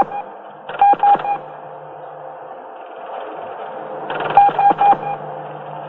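Alien mechanism inside a UFO wreck fragment, picked up by an audio sensor: a regular, mechanical signal of short clicking beeps in clusters, one cluster about a second in and another after about four seconds, over a steady electronic hum.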